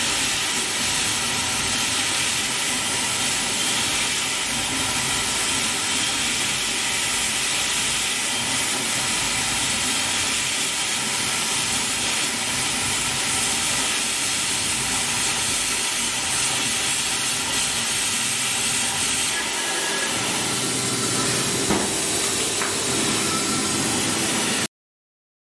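JDM5Z five-axis dental CAD/CAM milling machine at work, its high-speed spindle and bur cutting crowns from a white dental disc with a steady hiss. The sound cuts off suddenly near the end.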